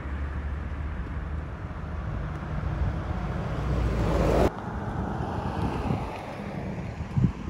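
Wind buffeting the microphone, a steady low rumble, with road traffic in the background. The noise swells until it cuts off abruptly about four and a half seconds in, then goes on in gusts.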